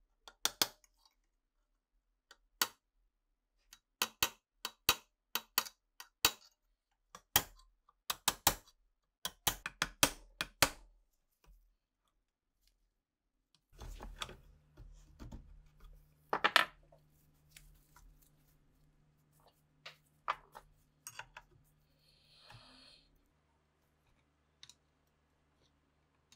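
Steel hand tools working the seized, rusted parts of a Winchester 1895 rifle's action: a run of sharp, irregular metal clicks and taps as a punch is worked against a pin. About halfway through, screwdrivers pry at the parts, giving scraping, one loud click and a short squeak over a faint steady hum.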